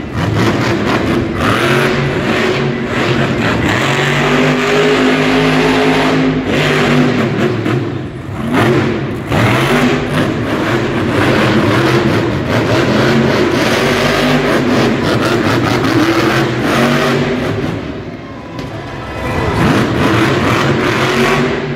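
Monster truck's supercharged V8 revving hard, its pitch climbing and falling again and again as the truck spins on the dirt, easing off briefly twice.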